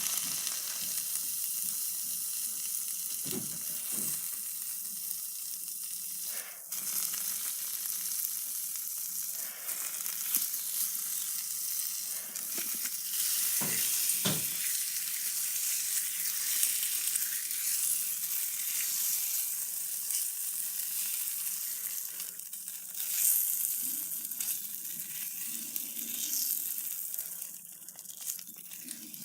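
Slime being worked by hand, squished and stretched, giving a continuous dense crackling with many small pops.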